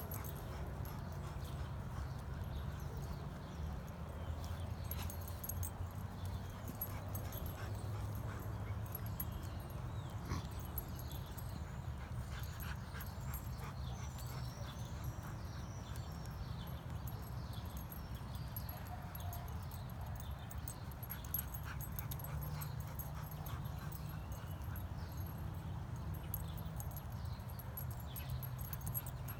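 Two dogs playing keep-away around a tree: faint whines, with light rustling and ticking of dry leaves and twigs under their paws, over a steady low rumble.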